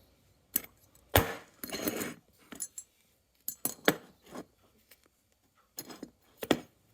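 Small hard objects handled and set down on a workbench: a scatter of light clicks, clinks and short scrapes, the loudest about a second in and another near the end.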